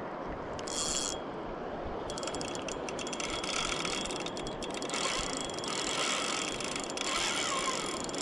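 Spinning reel's drag clicking in fast runs from about two seconds in, as a hooked king salmon pulls line off the spool.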